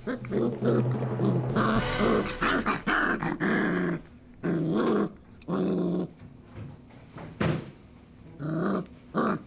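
Four-week-old Belgian Malinois puppies play-fighting, growling and yipping in short bursts, packed close together in the first few seconds and more spaced out after.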